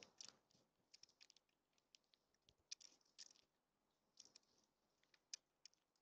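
Faint, irregular clicks and ticks from small birds feeding at a tube seed feeder, their beaks picking at seed and tapping on the feeder.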